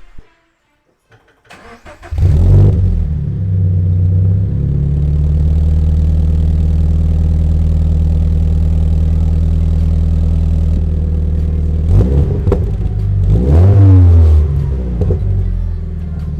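Toyota GT86's flat-four engine breathing through an MXP Comp RS aftermarket exhaust: it starts about two seconds in with a brief flare, settles to a steady idle, then gets a couple of quick throttle blips and one bigger rev near the end before dropping back to idle.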